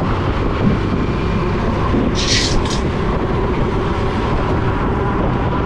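Wind rushing over the microphone and the rumble of surrounding road traffic while riding an electric bike in city traffic, steady throughout, with a short hiss about two seconds in.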